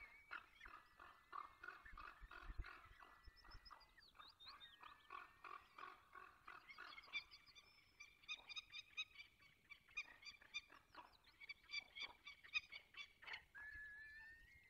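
Peregrine falcon chicks calling faintly in the nest: a long run of short, rapid, high-pitched notes that climb higher in pitch in the second half.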